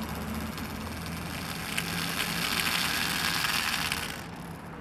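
Original 1936 Megow's hand-wound clockwork spring motor in a model cabin cruiser whirring as its gears spin the propeller in the air. The buzz grows louder about two seconds in and stops abruptly about four seconds in.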